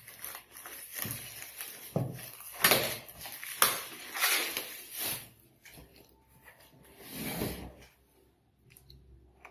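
Large cardboard TV box being handled and shifted: a string of scraping, rustling sounds with a few sharp knocks, thinning out over the last couple of seconds.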